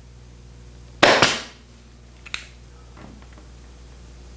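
Staple gun firing a staple partway into a wooden sofa frame: one sharp crack about a second in, followed by a small click a little after two seconds.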